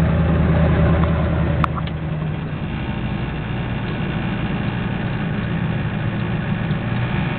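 Ford pickup's IDI diesel V8 pulling up a long grade, heard from inside the cab as a steady low engine note. A sharp click comes about a second and a half in, after which the engine note eases and gets a little quieter.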